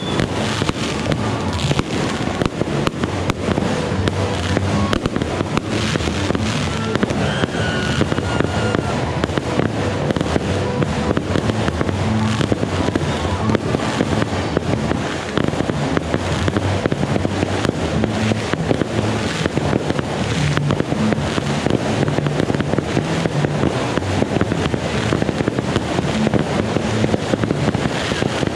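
Fireworks display: a continuous, rapid barrage of bangs and crackles from aerial fireworks bursting overhead, with no pause.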